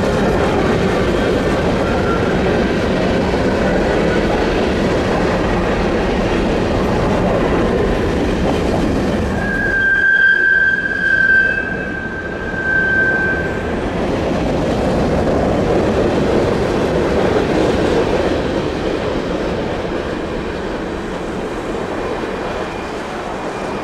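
Freight cars of a long CN freight train rolling past with a steady rumble and wheel clatter. About ten seconds in, a wheel gives a high-pitched squeal lasting roughly four seconds.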